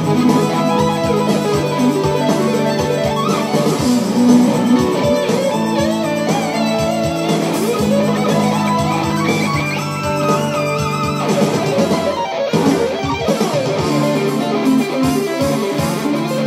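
Electric guitar played through a Hughes & Kettner valve amplifier: fast, busy neo-classical rock lead lines over sustained low notes.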